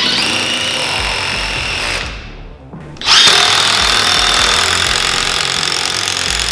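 DEWALT 20V MAX XR brushless quiet hydraulic impact driver running with a steady whine. It runs for about two seconds, stops briefly, then starts again about three seconds in.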